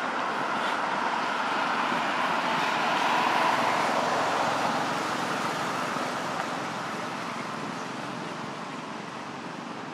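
Road traffic noise from a passing vehicle, growing louder over the first few seconds and then slowly fading away.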